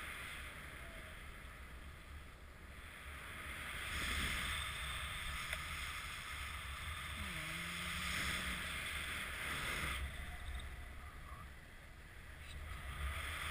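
Wind rushing over the microphone of a paraglider pilot's camera in flight, a rumbling hiss that swells about four seconds in, eases near the end and swells again.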